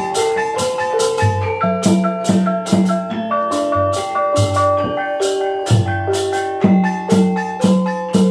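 Osing-style gamelan ensemble playing: rows of bonang kettle gongs ring a fast, busy melody over a kendang hand drum, with a steady beat of sharp, bright strokes.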